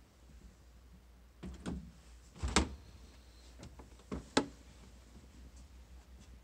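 A handful of short sharp clicks and knocks, the loudest about two and a half seconds in and a quick pair just past four seconds, over a low steady hum.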